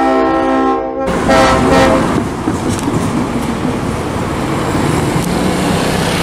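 Diesel locomotive horn sounding a chord of several notes that cuts off about a second in, followed by a second, shorter blast. After that comes a steady low rumble of engines and background noise.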